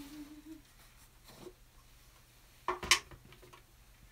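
A woman hums a brief low note that stops about half a second in. A faint knock follows, then about three seconds in a short, sharp double clatter as painting tools are handled.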